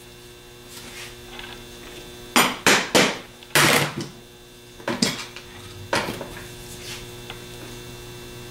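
Hammer tapping the lever arm housing of a Delco Remy 42MT heavy-duty starter to knock it loose from the field housing: light metallic taps, a quick run of them between about two and a half and four seconds in, then single taps about a second apart.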